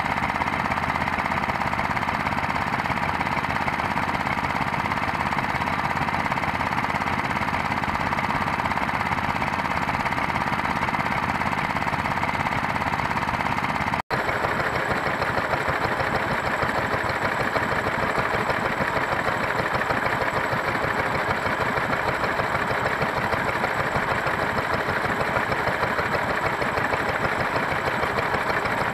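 Small vintage stationary engines running steadily with a fast, even beat. The sound cuts out for an instant about halfway and then carries on with a somewhat different, brighter engine note.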